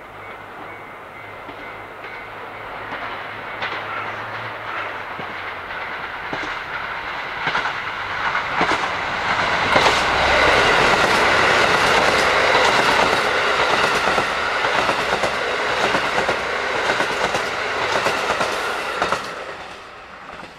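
Train passing close by, its wheels clattering over the rail joints. The sound grows louder through the first half, holds loud, then drops away sharply near the end.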